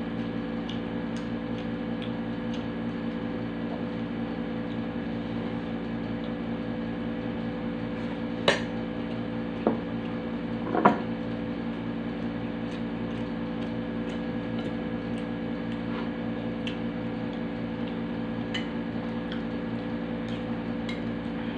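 Cutlery clinking on a plate while eating: three sharp clinks a little past the middle, over a steady appliance hum with several fixed tones.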